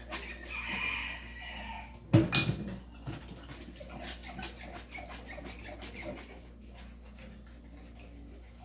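Dishes being washed by hand at a kitchen sink: a sponge scrubbing and dishes and plastic containers clinking and knocking, with one loud clatter about two seconds in.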